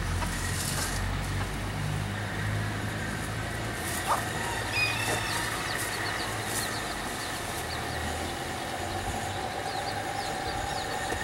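Faint, short, high chirps of a small bird repeating from about halfway in, over a steady low background rumble.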